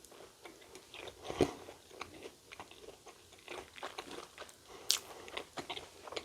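Close-up chewing of a crunchy battered Korean corn dog: irregular crisp crunches and wet mouth clicks, with the loudest crunches about a second and a half in and again near five seconds.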